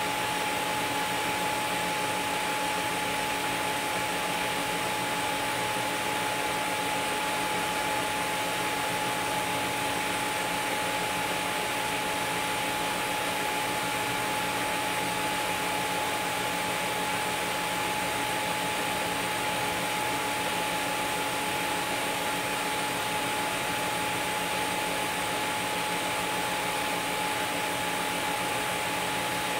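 Miller Dynasty 350 TIG arc on stainless steel sanitary tubing: a steady hiss with a constant high whine. It is run at a set current without pulsing, so there is no rhythm in it.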